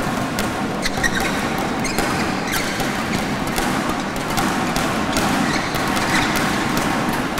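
Badminton doubles rally: rackets hitting the shuttlecock back and forth in quick, irregular sharp cracks, over a steady crowd noise in a large hall.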